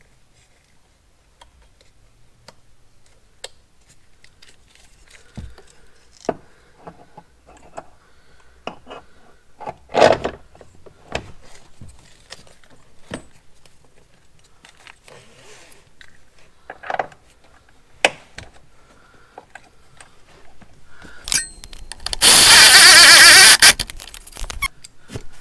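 Metal parts and hand tools clicking and clinking as automotive seat belt anchor hardware is fitted, with a few sharper knocks. About 22 seconds in comes a loud burst of about a second and a half from a power tool running the anchor fastener down before it is torqued to 33 pounds.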